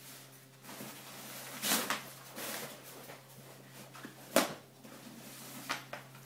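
Nylon bags rustling as they are pulled open and out of one another, with a few sharp knocks; the loudest comes about four seconds in. A steady low hum runs underneath.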